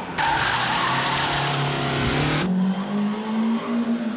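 Toyota AE86 Corolla Levin gymkhana car running hard, its tyres skidding with a loud hiss for about two seconds that cuts off sharply. The engine note carries on alone and rises near the end.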